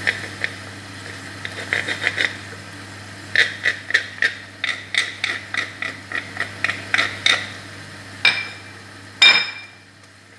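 A wooden spoon tapped and scraped repeatedly against a handheld garlic utensil to knock the last garlic off into the pan: a long run of quick, irregular sharp taps with a short ring. A louder knock comes about nine seconds in.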